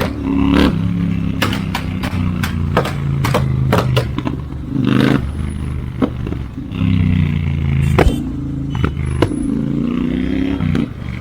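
Royal Enfield Interceptor 650 parallel-twin engine running on the move, its pitch rising and falling with the throttle several times. Its tuned exhaust gives many sharp pops and crackles along the way.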